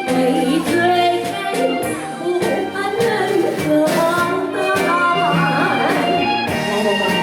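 Music: a pop song with a melodic lead line over instrumental backing and a steady beat.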